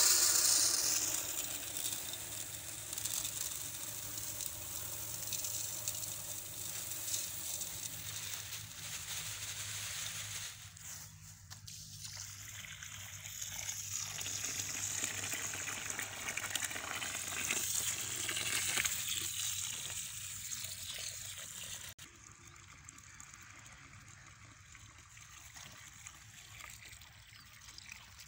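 Water from a hose gushing into an aluminium pot of rice as the rice is rinsed by hand. The flow eases off briefly twice and stops about 22 seconds in.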